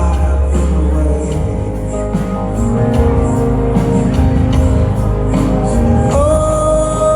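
Live rock band playing: guitars holding sustained notes over cymbals keeping a steady beat. The heavy bass thins out about a second in, and a held note slides up near the end.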